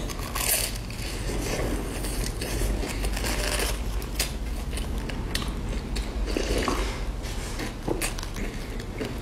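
Close-up biting and chewing of a deep-fried bread cake, with many short crunches and crackles from the crisp crust, over a low steady hum.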